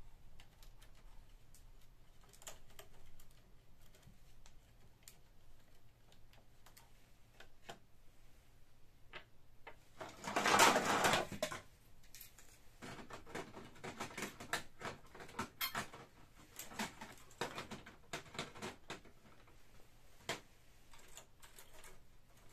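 Plastic clicks and rattles as a Canon PIXMA MP-series printer is taken apart by hand, its ribbon cables and control-panel parts pulled free. About ten seconds in there is one louder scrape lasting over a second, followed by a quick run of clicks.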